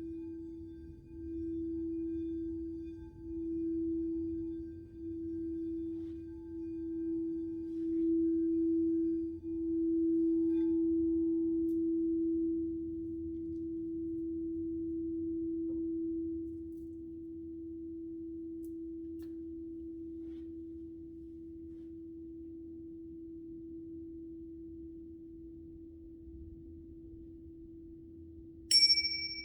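Crystal singing bowl sounding one steady low tone that swells and fades in waves for about the first half, then rings on more quietly. Near the end a pair of tingsha cymbals is struck once, a sharp high ring that carries on over the bowl's tone.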